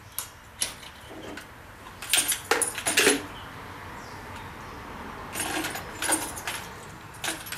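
Metal clinking and clattering of hose fittings being handled and attached at the valves of stainless brewing kettles, in two bursts of quick clicks, about two seconds in and again about five and a half seconds in.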